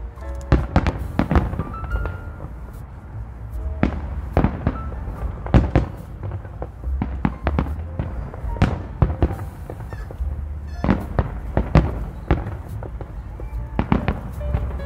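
Aerial firework shells bursting in an irregular barrage, many sharp bangs a fraction of a second to a couple of seconds apart over a steady low rumble.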